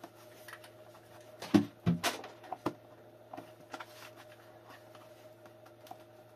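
A few sharp knocks and clatters from handling the e-bike's battery case, bunched between about one and a half and three seconds in, over a steady low hum.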